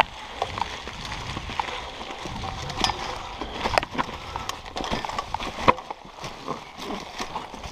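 Mountain bike riding fast over a leaf-covered, rocky singletrack: tyres rolling through dry leaves under a low rumble, with frequent irregular clicks, knocks and rattles as the bike jolts over roots and rocks.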